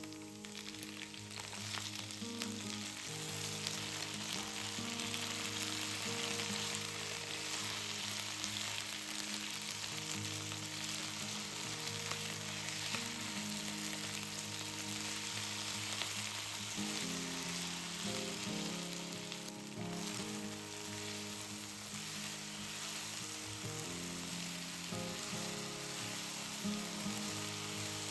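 Food frying in hot oil in a pan: a steady dense sizzle with fine crackles, which starts up sharply at the very beginning. Soft background music plays underneath.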